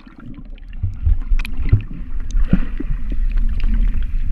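Underwater sound through a submerged GoPro Hero4 while a swimmer moves below the surface: a muffled low rumble of moving water with scattered small clicks and pops of bubbles, growing louder about a second in.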